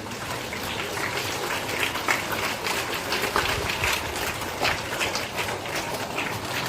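Audience applauding: many hands clapping at once, right after a speech ends.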